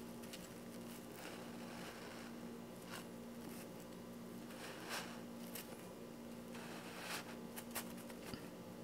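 Fork prongs stabbed into the side of a sourdough English muffin and levered to split it open, giving a handful of brief, soft scratchy tearing sounds as the crumb pulls apart, over a faint steady hum.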